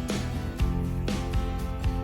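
Background music: an upbeat guitar track with a steady drum beat.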